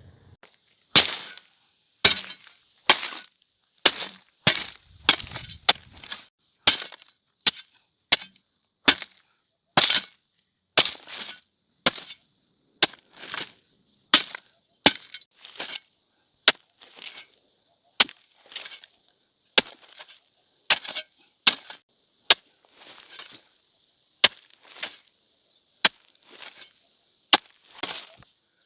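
A hand tool chopping, a long run of sharp strikes about one a second with short pauses between, some coming in quick pairs.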